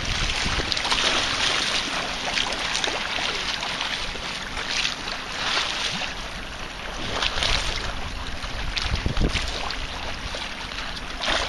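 Wind blowing on the microphone over sea water sloshing and splashing against a harbour wall, swelling in several louder surges.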